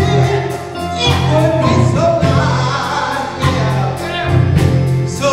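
Men's gospel group singing together over steady low instrumental notes.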